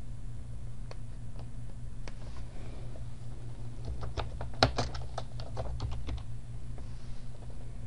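Computer keyboard keystrokes typing a short phrase ("70 minutes"): a quick run of about a dozen key clicks from about three and a half seconds in, after a couple of single clicks, over a low steady hum.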